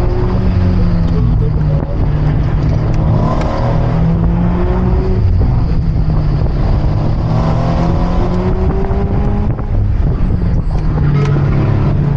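Car engine under hard acceleration on a winding road, its note climbing in pitch several times with short drops between, as it revs up and shifts or lifts between bends.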